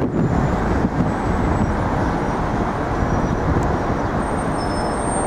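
Steady city street traffic noise, a dense low rumble of passing cars and trucks with no single vehicle standing out.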